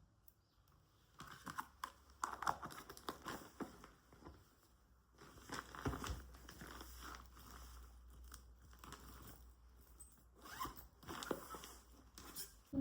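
Close handling noises: irregular rustling and crinkling with many small clicks, starting about a second in.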